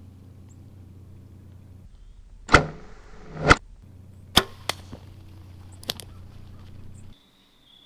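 A bow shot: two loud, brief hits about a second apart as the arrow is loosed and strikes, then a few sharp snaps. Near the end the sound cuts away to a high steady chirring of insects.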